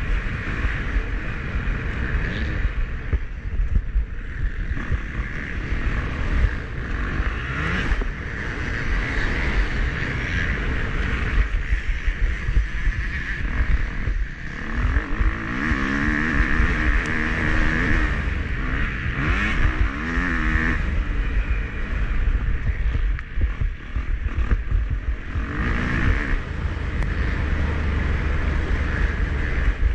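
Motocross bike engine revving up and down repeatedly as it is ridden hard, heard from an onboard action camera under a heavy low rumble.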